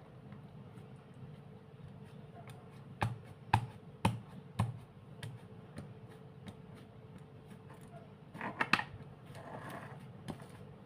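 Four sharp taps, each with a dull thump, about half a second apart, then a quick cluster of clicks near the end, over a faint steady hum.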